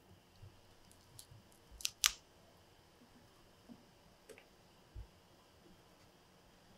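Faint crackles and clicks of a dried cannabis bud being broken apart by hand and dropped into a glass mason jar of olive oil, the sharpest click about two seconds in. A soft low knock about five seconds in.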